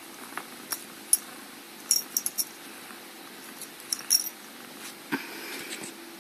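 A cat's metal collar tag clinking in short jingles as she is scratched under the chin: a single clink about a second in, a quick cluster near two seconds and another near four. A soft rustle of fur and movement follows near the end, over a faint steady hum.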